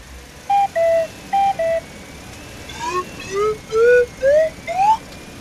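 Electronic cartoon-style sound effect: a two-tone beep played high-low twice, then six short notes that each slide up, climbing step by step in pitch.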